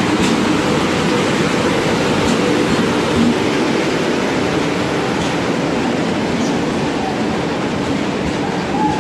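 Indian Railways WAP-7 electric locomotive and its passenger coaches passing along a station platform: a steady, continuous noise of the train going by, with a few faint clicks.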